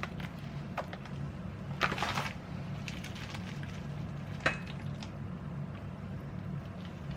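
Kitchen work sounds over a steady low hum: a few light knocks, a brief clatter about two seconds in and a sharp clink about four and a half seconds in.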